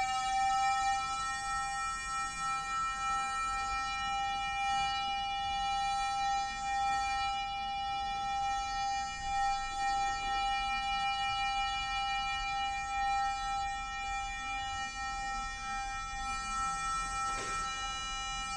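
Korg MA-1 electronic metronomes sounding a held electronic tone, bright with many overtones. The tone bends slightly in pitch in the first second and then stays steady. A faint click comes near the end.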